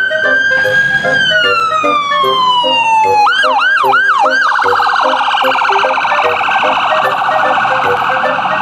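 Electronic ambulance siren: a held tone that slides steadily down in pitch, then about four quick rising-and-falling whoops, then a fast warble that carries on to the end. Faint background music with short repeated notes plays underneath.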